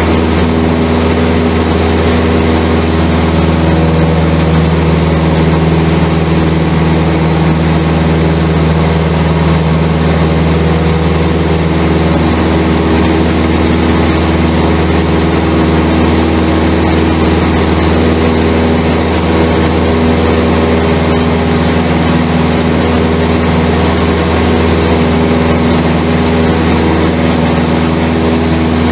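Cessna 172's piston engine and propeller running steadily in flight, heard inside the cabin as a loud, constant drone; its tone shifts slightly about twelve seconds in.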